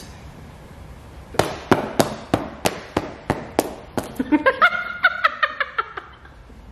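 Sneakers slapping together as legs kick in the air, a quick series of sharp claps about three a second. From about four seconds in, a run of squeaks joins the slaps, which stop about six seconds in.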